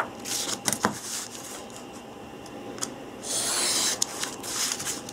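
Printed paper sheets rustling and a steel ruler set down with a few light clicks, then a craft knife drawn along the ruler, slicing through the paper on a cutting mat with a hissing scrape lasting under a second about three seconds in.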